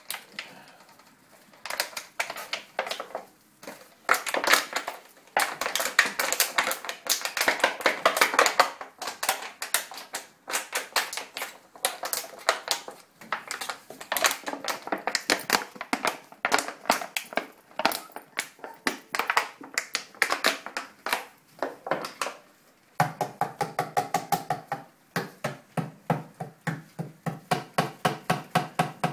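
Month-old bully-breed puppies scampering and scuffling on crinkly puppy pads: dense, irregular runs of quick taps and scratches from paws and claws, with short lulls. From about 23 seconds in, a low steady hum lies under the tapping.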